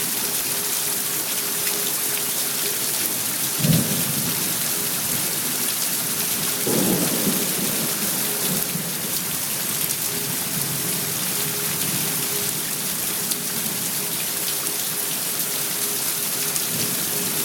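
Thunderstorm: steady rain with thunder, a sharp clap about four seconds in and a rolling rumble a few seconds later.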